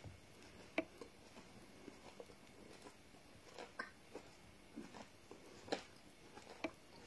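Faint chewing of garri, with a handful of soft, short mouth clicks and smacks scattered unevenly through it.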